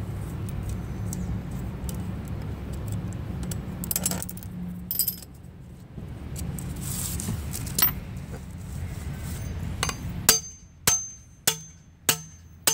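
A steady low hum with light clicks and handling rustle. About ten seconds in it gives way to a regular run of sharp metal-on-metal strikes, roughly one every half second or so, each leaving a brief high ring.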